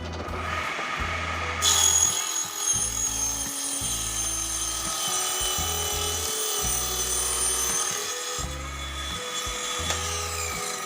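Homemade table saw, driven by a washing-machine motor, ripping a board along the grain with a 7-inch Molar blade: a steady high whine and rasp of the blade cutting from about one and a half seconds in until about eight seconds in. Background music with a steady bass beat plays under it.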